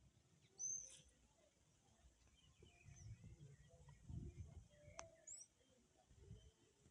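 Faint outdoor background with a few short, high bird chirps, the clearest about a second in and another near five seconds, over a low rumble.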